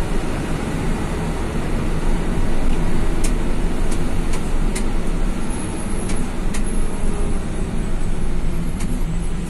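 Medium intercity bus driving, its engine hum and road noise heard from inside the passenger cabin, with a few light clicks or rattles in the middle.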